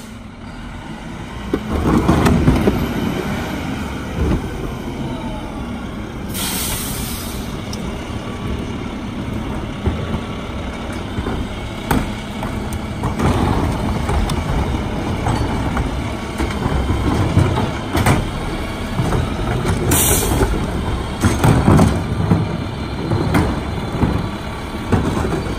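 Mack MRU garbage truck with a Heil Formula 5000 rear-loader body pulls up, its engine loud as it nears, then gives a short hiss of air brakes about six seconds in. The engine runs on while carts are tipped into the rear hopper, with repeated knocks and clatters and another short air hiss near the middle.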